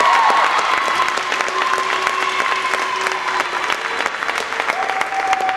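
Crowd applauding, a dense steady clapping that eases off slightly toward the end.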